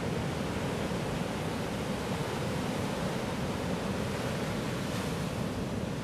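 Sea surf on a sandy beach: a steady wash of breaking waves, with a brighter surge of water about five seconds in.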